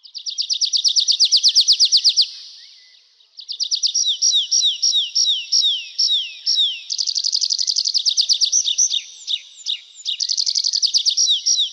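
Nightingale singing: a fast trill of repeated notes, a pause of about a second, then a run of phrases mixing rapid repeated notes with quick falling whistles.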